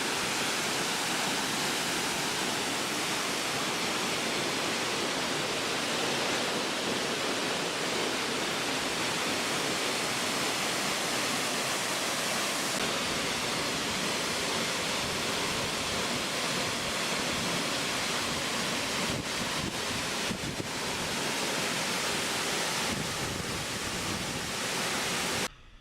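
Small roadside waterfall pouring steadily, a continuous rushing of falling water that cuts off suddenly near the end.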